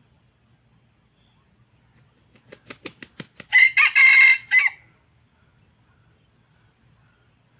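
A red junglefowl rooster beats its wings in a quick run of about eight claps, then crows once: a short, clipped crow broken into a few parts.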